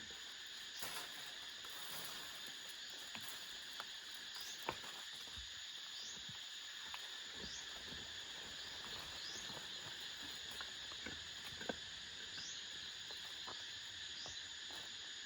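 Forest ambience: a steady, shrill drone of insects, with short rising chirps repeating every second or two. Scattered light clicks and knocks sound over it, the sharpest a little under five seconds in and near the end.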